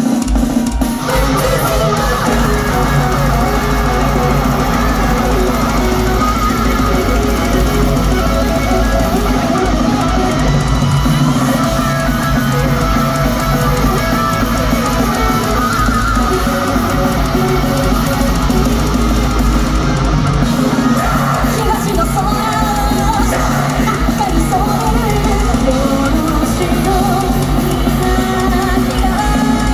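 A heavy metal band playing live in a concert hall: distorted electric guitars, pounding drums and sung vocals, loud and dense, heard from the crowd.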